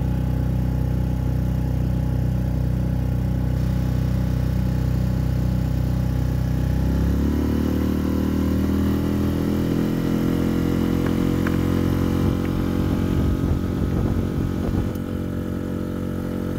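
Outboard motor on an inflatable boat running steadily while under way. About seven seconds in the engine note changes and stays at the new pitch, turning uneven a couple of seconds later.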